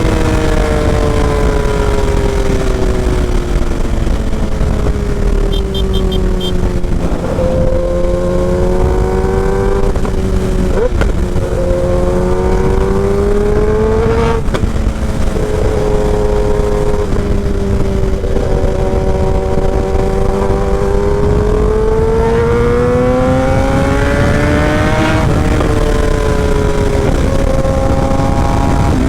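Kawasaki Ninja ZX-10R inline-four running through a short SC Project exhaust under way, its pitch falling and rising as the revs drop and climb, with brief breaks that fit gear changes. A dense low rush of wind on the microphone runs under it. A few short high beeps sound about six seconds in.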